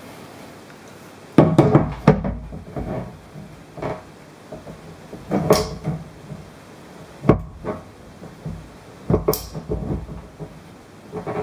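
Caulking gun worked by hand: its trigger and plunger clack in a series of sharp knocks about every two seconds as clear silicone sealant is pressed out of the cartridge.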